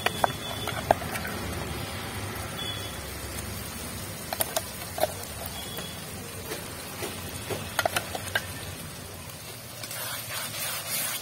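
A metal spoon clinking and tapping against a steel bowl and an aluminium kadai as a wet paste is spooned into the pan, in a few short clusters of sharp clicks. Underneath is a steady low rumble and the faint sizzle of tomatoes frying in oil.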